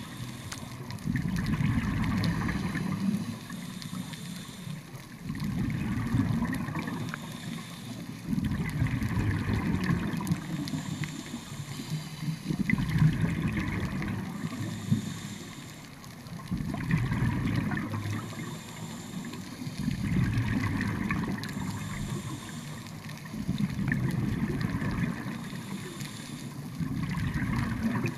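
Scuba diver breathing through a regulator underwater: exhaled bubbles rumble out of the regulator in regular bursts, about one breath every three to four seconds, with quieter inhale gaps between.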